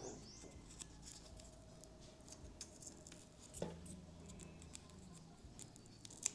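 Faint scattered small clicks and ticks of hands handling a laptop's display cable connector, its small locking clip and tape, with a few slightly louder clicks.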